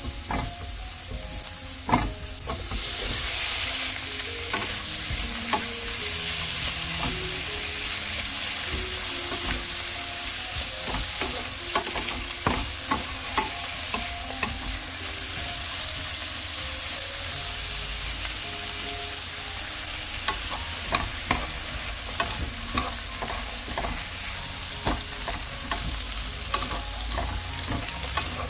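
Minced garlic and then sliced cucumber sizzling as they are stir-fried in oil in a nonstick frying pan. Repeated sharp clicks and scrapes of a spatula and chopsticks against the pan run through the sizzle, with one loud click about two seconds in.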